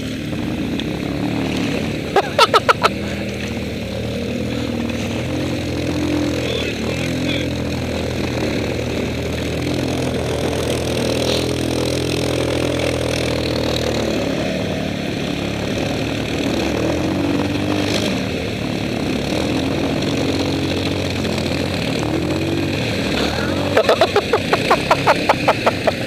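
Quad (ATV) engine running under load as it wades through water, its pitch shifting with the throttle. Short bursts of rapid, evenly spaced pulses come about two seconds in and again near the end.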